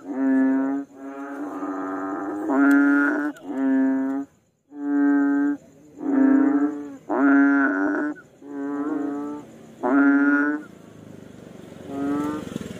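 A frog calling over and over: about ten short calls of steady pitch, each under a second long and coming about one a second, with a pause shortly before the end.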